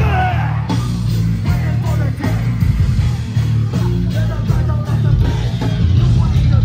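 Hardcore band playing live and loud: distorted guitars and bass over drums.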